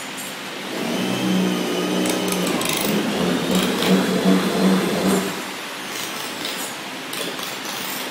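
Welding machine buzzing with a low pulsing hum that starts about a second in and stops a little after five seconds.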